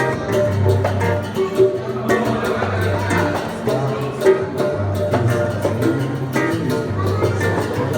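Acoustic guitar (violão) strummed in a Brazilian style, with bass notes shifting about once a second under quick chord strokes.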